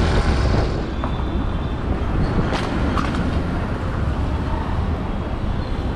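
Wind and road noise on a moving motorcycle. After about a second it eases into a steady low rumble, with two short clicks near the middle.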